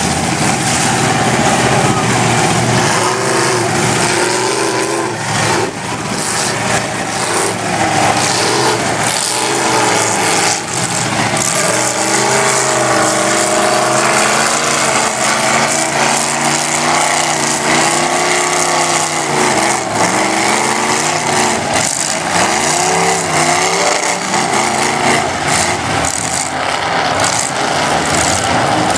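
Lifted mud-bog truck's engine revving hard as it churns through a mud pit, its pitch rising and falling again and again over a steady loud drone.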